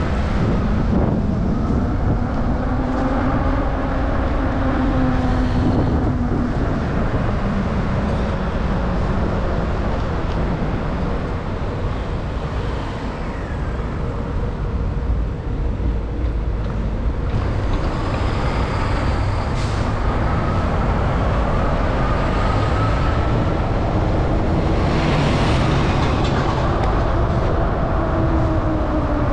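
Road traffic: several motor vehicles passing one after another, their engine notes rising and falling as they go by, over a steady low rumble.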